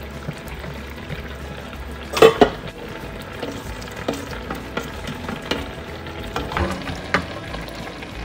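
Chicken and vegetable broth simmering and bubbling in a wok, with two loud clanks about two seconds in. Then light taps and scrapes as chopped spring onions are slid in from a plate and stirred with a wooden spoon.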